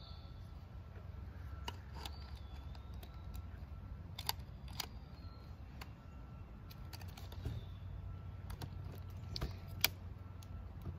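Irregular sharp plastic clicks and knocks as a hard plastic Extreme Damage Tyrannosaurus rex toy figure is handled and its parts moved, over a low steady rumble.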